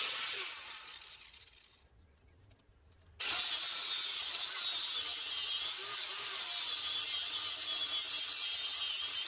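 Wire brush on a handheld corded power tool scouring a steel channel to clean it for welding: a short burst that dies away over about two seconds, then from about three seconds in a steady, loud scraping of the bristles on the metal.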